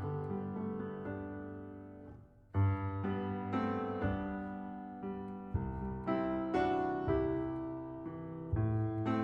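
Background piano music: chords struck and left to fade, with a short break about two seconds in before the playing resumes.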